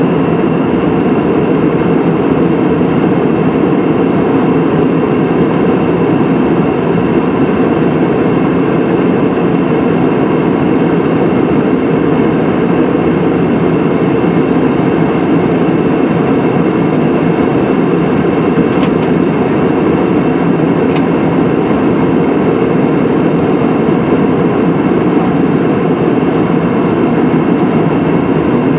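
Steady airliner cabin noise in flight: the engines and rushing air heard from inside the cabin, with a few faint ticks about two-thirds of the way through.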